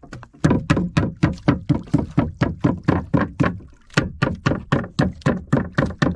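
Rapid, even knocks of a knife beating a bigfin reef squid (pusit lumot) against a wooden paddle blade, about four strikes a second. The tough squid is being pounded soft for use as fishing bait.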